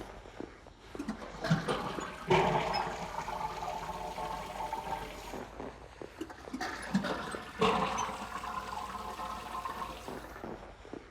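Toilet flush: a rush of water swelling up about two seconds in and again about eight seconds in, repeating like a loop.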